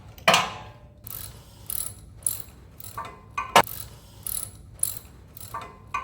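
Hand tools on metal: about a dozen sharp, irregular clicks and clinks, a few ringing briefly, from working the ride-on mower's spark plug with a wrench.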